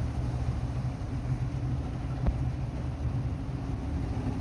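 Yamaha outboard motor running steadily on a river boat, with a rush of wind and water over it. A single short knock sounds a little past halfway.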